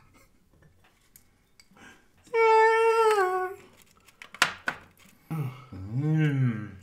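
A high, drawn-out voice-like note that holds steady and then slides down at its end, followed by a short clink, then a man humming low with his pitch rising and falling.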